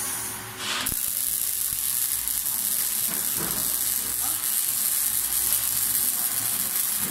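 Robotic arc welder striking its arc about a second in, then crackling and sizzling steadily as it welds a steel tube post.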